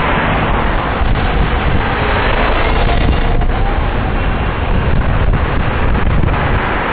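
Loud, steady wind rush and low buffeting on the microphone of a camera mounted on a moving bicycle.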